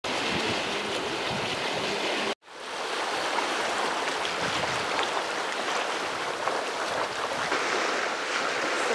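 Steady rush and hiss of water along the hull of a sailing yacht under way, cutting out for a moment a couple of seconds in.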